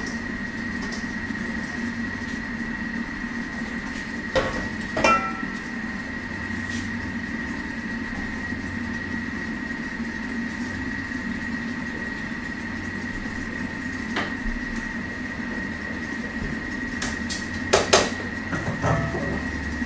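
Thermomix TM6 running at low stirring speed while heating, a steady hum with a thin high tone. Stainless steel bowls clank a few times, the loudest pair near the end.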